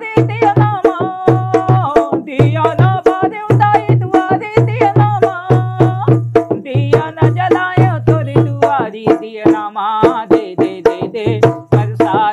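A man singing a Chhattisgarhi jas geet devotional song while beating a steady rhythm on a rope-tensioned dholak drum, deep strokes mixed with sharp slaps.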